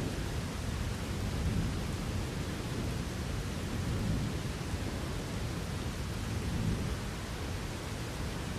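Steady rain with a low rumble of distant thunder underneath that swells and fades every couple of seconds.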